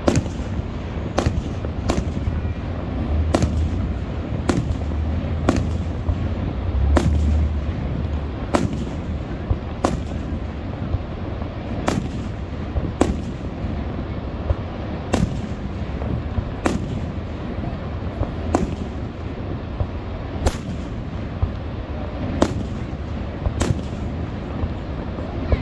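Aerial fireworks shells bursting overhead in a steady run of sharp bangs, one every second or two, over a constant low rumble.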